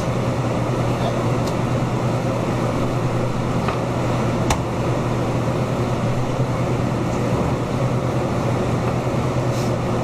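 Steady hum and air rush of a fan unit with a constant low drone, and a few faint clicks of a knife against a wooden cutting board.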